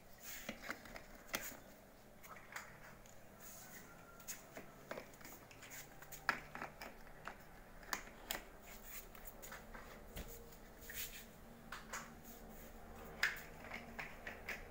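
Large plastic interlocking building blocks clicking and knocking as they are handled and pressed together to build up a dome on a block model. An irregular run of short, sharp clicks, a few of them louder.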